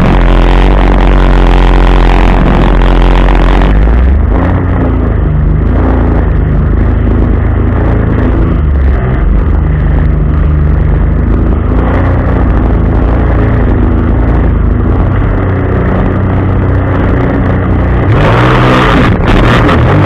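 A 2008 Sea-Doo GTI 155 personal watercraft's engine running under throttle, its pitch shifting up and down as the rider works the throttle over choppy water. A loud rush of wind and water spray covers it, and the hiss eases from about four seconds in until near the end.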